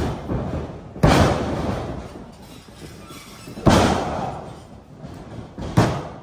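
Wrestlers' bodies slamming onto the wrestling ring's mat: a loud thud about a second in and another a little past halfway, with a smaller one near the end. Each hit rings on and echoes around the hall.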